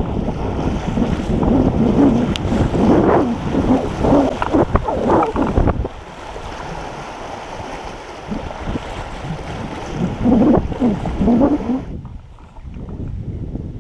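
Kayak paddled through a shallow river riffle: rushing water splashing against the hull and paddle blades, with wind buffeting the microphone. Near the end the rushing cuts off abruptly to a much quieter, calm-water sound.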